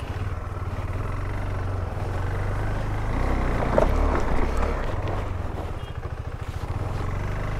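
KTM 390 Adventure's single-cylinder engine running steadily at low revs while riding a dirt trail. It swells a little about halfway through, then eases off.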